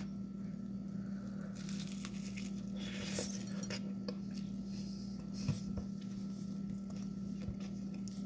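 Faint clinks and rustles of a fork and plate while eating, over a steady low hum, with one sharp tap about five and a half seconds in.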